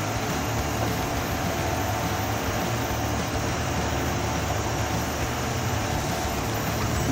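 Heavy forestry machine running steadily, a constant low engine drone with mechanical noise over it.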